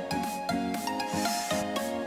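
Background music: an instrumental tune of short, bright repeated notes over a steady beat.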